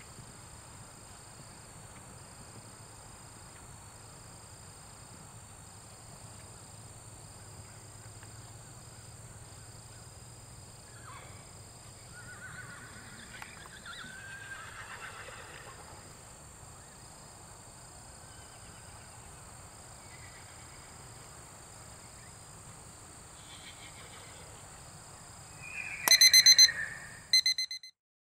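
Horses whinnying: faint calls around the middle, then a loud, high whinny near the end.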